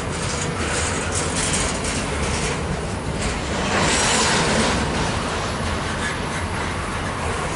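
Freight cars of a Union Pacific garbage train rolling slowly past: a steady rumble of steel wheels on rail with repeated clicks, louder for a moment about halfway through.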